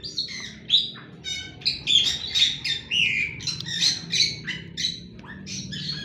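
Several aviary birds chirping and calling at once, a rapid overlapping run of short high notes with no pause.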